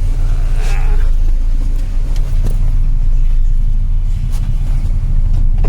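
Car engine and road noise: a loud, steady low rumble.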